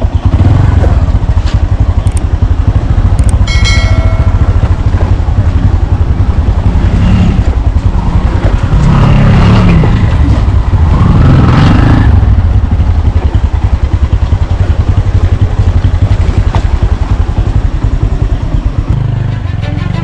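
Motorcycle engine running under way, with heavy wind buffeting on the bike-mounted microphone. A short beep sounds about four seconds in, and brief voices come through in the middle.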